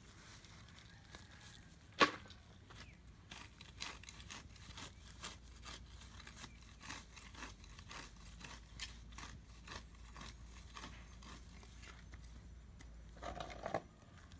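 A cat chewing grass: faint crisp crunches about two or three a second, with one sharp click about two seconds in and a brief louder rustle near the end.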